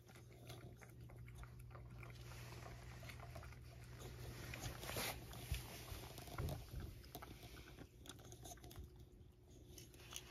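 A cat licking a lickable paste treat from a small ceramic bowl: faint, quick wet tongue clicks and lapping, irregular and continuous.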